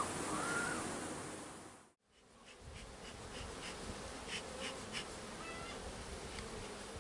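Honeybees buzzing around a hive, with a beekeeper's bellows smoker puffing several short times at the entrance in the middle. The sound drops out briefly about two seconds in.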